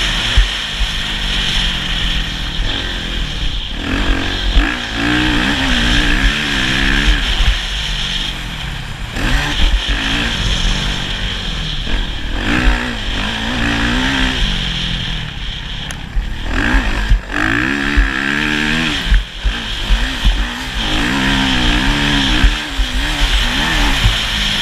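Motocross motorcycle engine being ridden hard, the revs climbing and dropping again and again as the throttle opens and closes. A low rumble with sharp jolts runs under it throughout.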